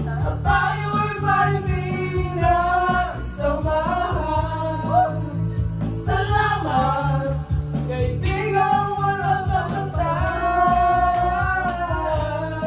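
Karaoke singing: a man sings a song into a handheld microphone over a music backing track, with others in the group singing along.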